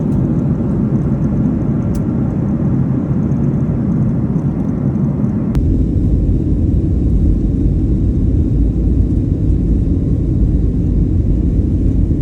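A loud, steady low rumble that changes abruptly about five and a half seconds in.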